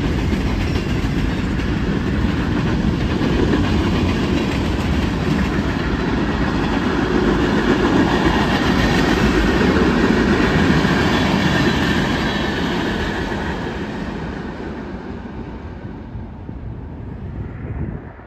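Freight train cars rolling past at speed, steel wheels clattering on the rails in a loud, steady rumble. It grows fainter over the last several seconds.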